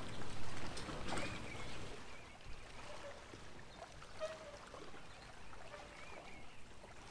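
Calm lake ambience with light water trickling and splashing, louder for the first couple of seconds and then faint, with a few brief faint tones.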